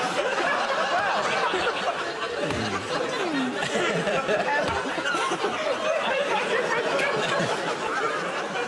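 A studio audience and panel laughing together, steady and unbroken, many voices overlapping into one long wave of laughter.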